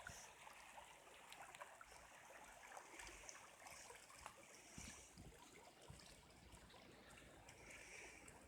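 Faint running floodwater, a soft steady rush, with a few light knocks.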